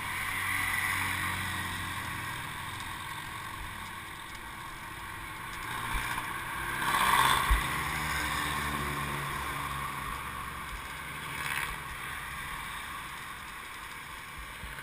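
Wind and road noise on a bike-mounted camera while cycling along a road, with the hum of passing motor traffic that swells briefly about seven seconds in.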